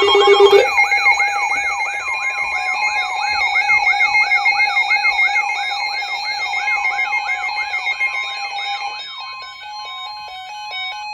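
Weather radio alert alarm sounding ahead of a new severe thunderstorm warning. It opens with a brief low tone, then a fast, repeating rising-and-falling warble over steady high tones, which changes to a stepping beep pattern about nine seconds in.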